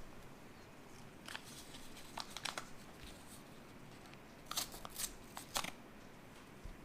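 A small packet of old instant coffee crinkling and crackling as it is handled and opened, in short runs of crisp clicks. The loudest run comes about four and a half to five and a half seconds in.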